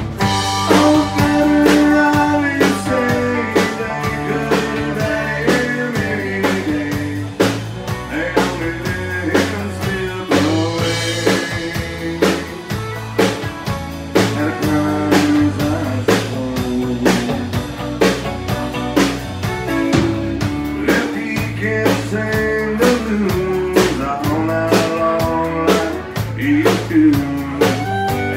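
Band playing an instrumental break: a drum kit keeps a steady beat under a lead melody line with sliding, bending notes.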